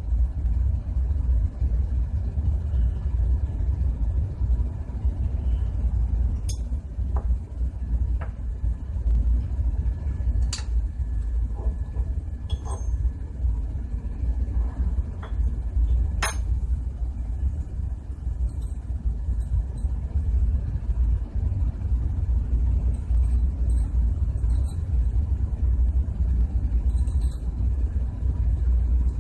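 A steady low rumble, with scattered light metallic clinks as steel compressor valve plates and small valve parts are handled and set down.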